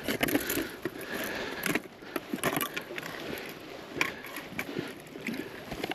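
Rustling and irregular light knocks and clicks of handling close to the microphone as a trout is held against a fish measuring board.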